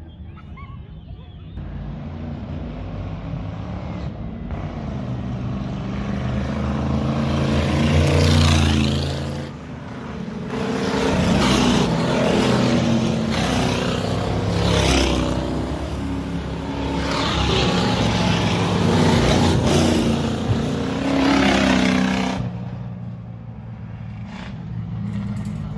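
Several Ford 302 small-block V8 race cars at full throttle on a dirt track, passing one after another. The engine noise builds over several seconds, rises and falls as each car goes by, and drops off sharply about 22 seconds in.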